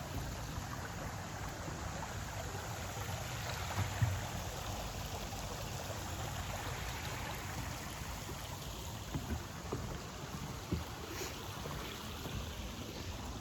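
Steady rushing of a river's flowing water, with a few soft knocks along the way.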